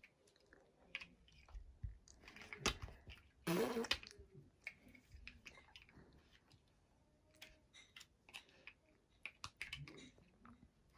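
Large plastic toy building blocks clicking and knocking as they are pressed together and handled, in scattered small clicks. A brief louder vocal sound about three and a half seconds in.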